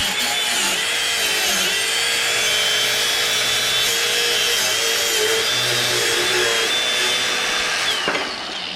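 Electric power tool running as it cuts, its motor whine wavering in pitch with the load, then stopping about eight seconds in.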